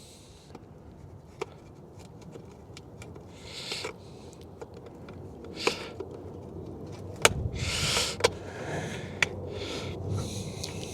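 Hands working a small clip into place on a car door mirror: scattered sharp clicks and brief rustling.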